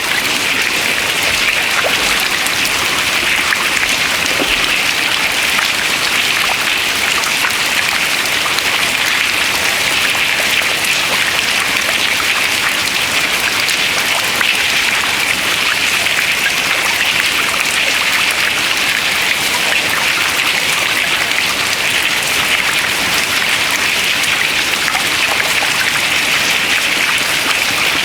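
Water dripping into water: a dense, steady patter of many drops and small splashes, with no single big fall of ice.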